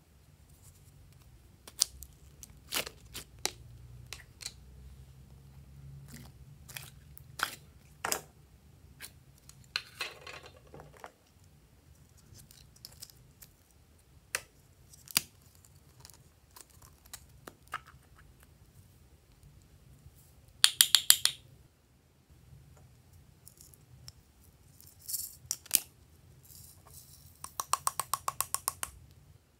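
Hard plastic slime containers being handled and opened: sharp clicks and taps, with two short quick rattles, one about two-thirds in and one near the end.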